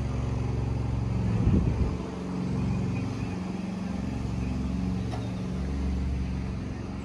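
A motor vehicle engine running with a steady low hum, with a brief change about a second and a half in.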